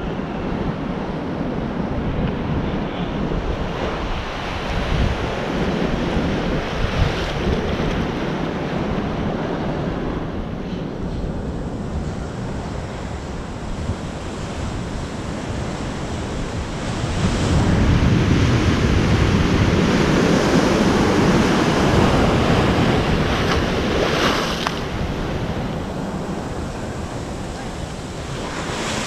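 Wind buffeting the microphone over the wash of waves below a fishing pier, a steady rushing noise that grows louder for several seconds past the middle.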